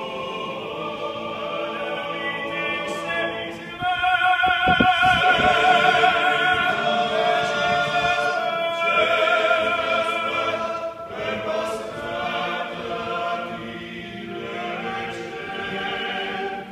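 Klapa, a Dalmatian a cappella male vocal group, singing sustained chords in close harmony under a stone dome. The chord swells louder about four seconds in, then eases back.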